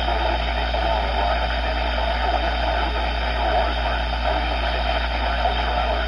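Weather radio receiver's speaker putting out a steady hiss of static over a low hum, with no clear alert tone or voice standing out.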